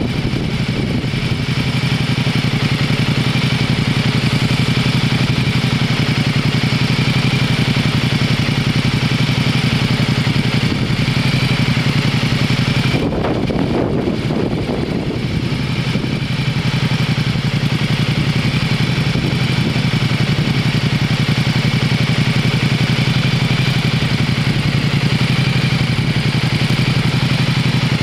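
A motor vehicle engine idling steadily, with a brief change in its sound about thirteen seconds in.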